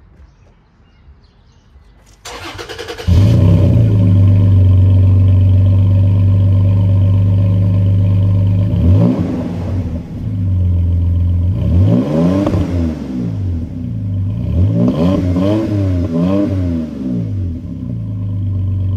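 Toyota Tacoma's 3.5 L V6, through an MBRP side-exit dual exhaust, cold-started: cranking about two seconds in, catching a second later and settling into a loud, steady fast cold idle. Three times a sound sweeps up and back down in pitch over the idle.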